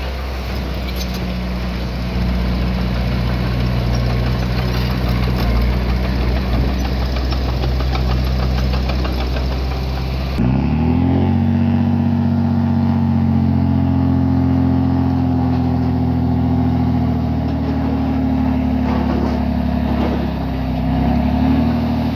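Diesel engine of heavy earthmoving equipment running under load. About halfway through the sound changes abruptly, then the engine revs up and holds at a higher pitch, wavering near the end.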